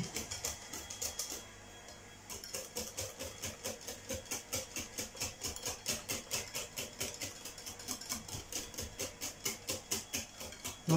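Wire whisk beating crêpe batter in a bowl, the wires clicking against the bowl at about four or five strokes a second, steady from about two seconds in.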